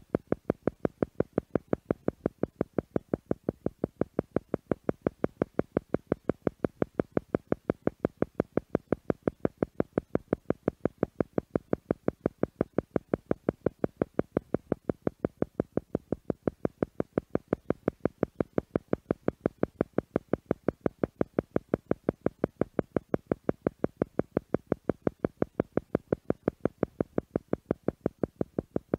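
Theta meditation tone: a pitched electronic tone pulsing on and off several times a second in an even, unbroken rhythm.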